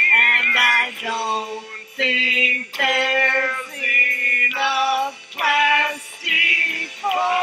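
A woman singing, holding notes with a wavering vibrato in phrases broken by short pauses.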